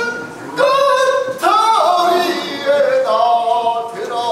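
Pansori singing: a male voice holding long sung notes, with a swooping bend in pitch about a second and a half in.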